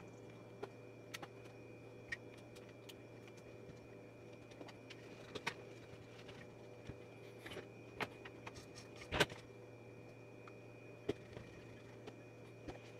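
Hands and small tools handling a bare sewing machine's metal frame: scattered light clicks and taps, the loudest about nine seconds in, over a steady low hum.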